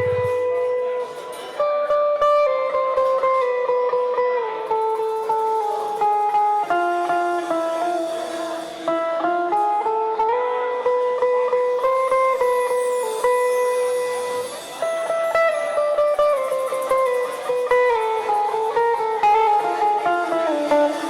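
Live guitar music: a melody of held notes moving step by step over a fuller accompaniment.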